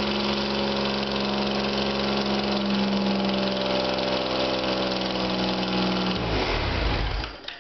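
Freshly rebuilt 1972 Citroën SM Maserati 2.7-litre quad-cam V6 on triple Weber carburettors, running at a steady speed on its first break-in run. About six seconds in it is switched off and winds down to a stop within about a second. The builder notes a minor leak at its old exhaust gaskets.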